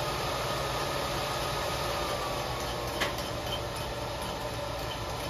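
Steady fan-like mechanical hum, with a faint tone falling slowly over the first few seconds and a single sharp click about three seconds in.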